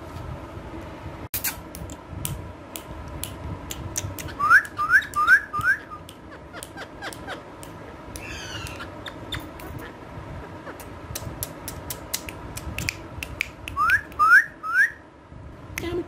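Indian ringneck parakeets calling: two runs of three or four short rising whistled chirps, about four seconds in and again near the end, with a wavering call in between and scattered sharp clicks throughout.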